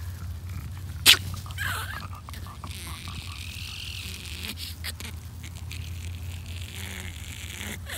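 Small dog rolling on its back in lawn grass, the grass rustling under it, with a sharp click about a second in.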